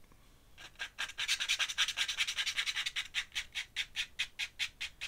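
Thin paintbrush scrubbing quickly back and forth on drawing paper, about seven short scratchy strokes a second, as ink is worked into the drawing.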